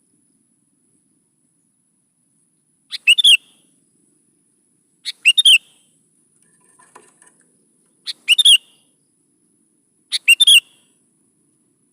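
Sooty-headed bulbul (kutilang) singing in short, bright phrases of a few quick notes. There are four phrases, each about half a second long, spaced two to three seconds apart.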